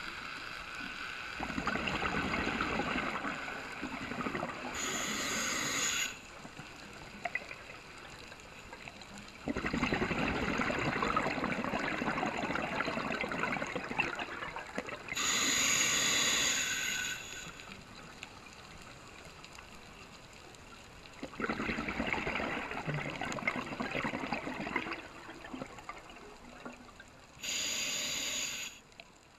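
Scuba diver breathing through a regulator underwater, in about three slow cycles. Each cycle is several seconds of bubbling, gurgling exhaust followed by a short hiss of inhaled air.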